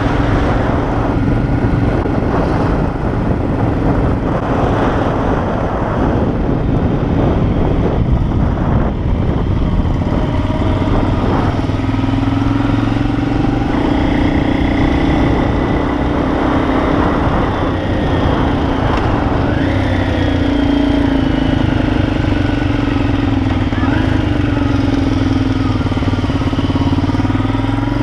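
Motorcycle engine running steadily throughout, with its pitch gliding up and down a few times.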